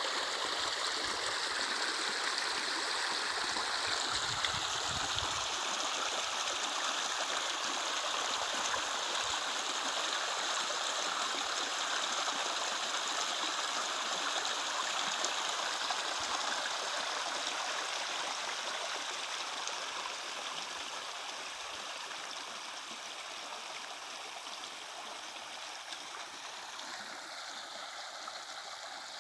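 Running water, a steady rush of flowing water, easing a little quieter over the last several seconds.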